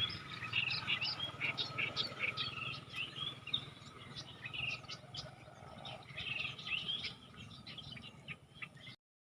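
Small birds chirping in quick, repeated short calls, thinning out towards the end and cutting off suddenly just before the end.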